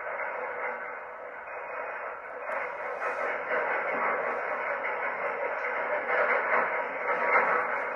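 Steady rushing static-like noise, thin and narrow like a poor radio, slowly getting louder.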